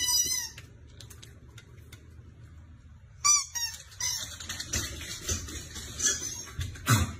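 Husky giving short high-pitched whining yips, one at the start and one about three seconds in. Then its paws click and scrabble on a wooden floor as it chases a thrown ball, and a thump near the end is the loudest sound.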